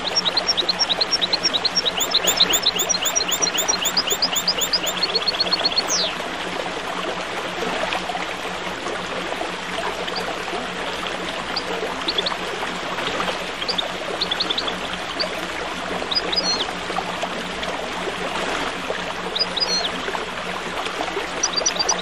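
Small songbirds chirping over steadily flowing water: fast runs of high chirps in the first six seconds, then scattered single chirps.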